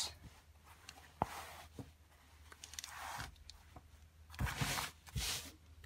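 Rustling of a long-sleeve shirt being handled and turned over, in a few short bursts with a small click early on, the loudest rustles a little past the middle.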